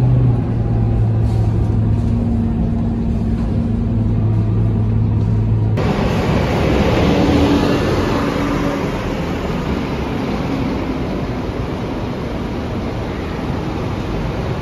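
Scania K230UB single-deck bus with its Scania DC9 engine running, heard from inside the cabin as a steady low hum while it drives. About six seconds in, the sound cuts suddenly to the bus heard from outside in a covered bus interchange, passing close and pulling away, its engine noise echoing.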